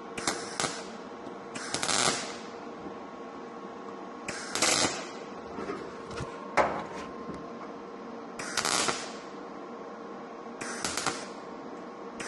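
Lincoln Electric Power MIG 210 welder laying short tack welds on a steel door panel: about six half-second bursts of crackling with pauses between. It is set low, at about 16 volts, to plug-weld old mirror holes shut without burning through.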